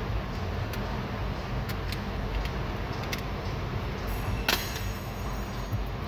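Light clicks and rattles of plastic and metal door-latch parts and cables being handled inside a car door, with a louder clack about four and a half seconds in, over a steady low background hum.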